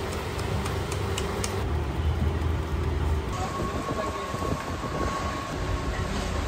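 Steady low mechanical rumble and hum, with a few faint knocks; the hum changes at a cut about three seconds in.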